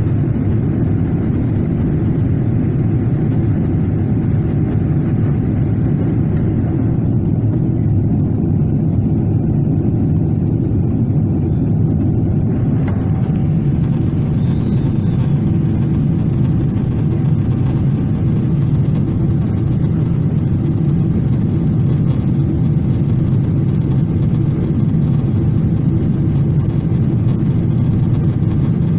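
Steady low roar inside the cabin of a Boeing 777-300ER in flight: its twin GE90-115B turbofans and the rush of air past the fuselage, with a faint steady hum above it.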